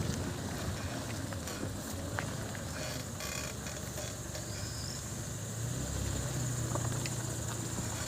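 Hyundai Elantra MD in motion, with steady engine and road rumble that swells in the second half. A brief, faint high-pitched squeak comes about four seconds in, typical of the squeak the car's brakes make when braking.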